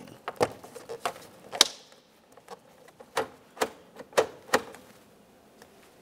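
Sharp plastic clicks and snaps, about nine in the first four and a half seconds, the loudest about one and a half seconds in, as a Chevrolet Tahoe's door lock lever is pressed and seated into the door panel trim.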